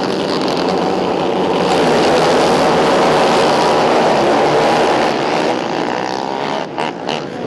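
A pack of racing quad ATVs accelerating hard off the start line, many engines at high revs blending into one loud drone. It eases off a little after about five seconds as the pack pulls away.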